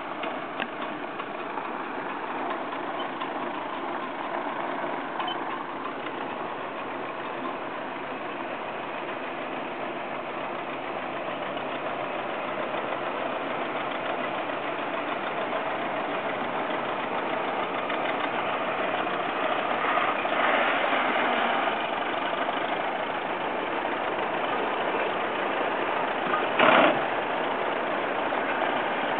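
Vintage farm tractor engines running steadily as the tractors pass one after another: a Farmall, then John Deere two-cylinder tractors. The engine sound grows louder toward the end as a tractor draws near. A short, loud thump comes near the end.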